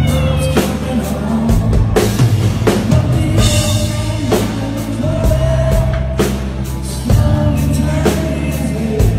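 Live country-rock band playing: a man sings the lead over a drum kit, bass and guitars, with steady drum hits throughout.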